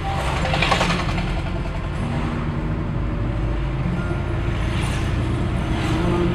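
Road and engine noise inside a moving car's cabin, a steady low rumble, with the swell of a lorry being overtaken close alongside.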